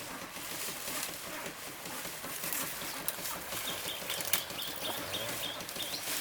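Poultry moving about, with rustling, a few sharp clicks, and a quick run of about eight short high chirps in the middle.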